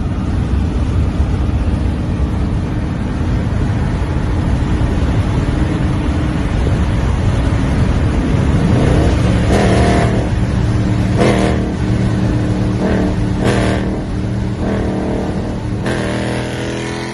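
Hemi V8 engine running with a heavy rumble, then settling into a steady idle with about six quick throttle blips in the second half.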